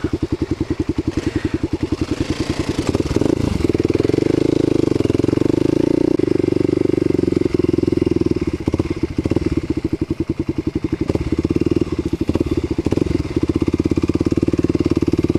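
Kawasaki KLX250's single-cylinder four-stroke engine running under load while riding a dirt trail, with a steady beat of firing pulses. The engine pulls harder a few seconds in, eases off in the middle with a few knocks from bumps, and pulls again near the end.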